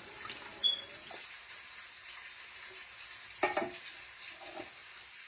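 Canned diced tomatoes being emptied into a hot stovetop pressure cooker pot, with a faint steady sizzle. Three short knocks and scrapes of the can and utensil come about a second in, around three and a half seconds, and near the end.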